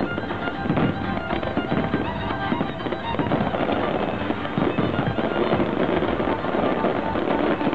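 Fireworks display: many aerial shells bursting and crackling in quick succession, with music playing alongside.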